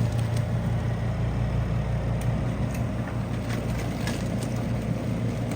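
Portable twin tub washing machine running with a steady low motor hum, a few faint clicks over it.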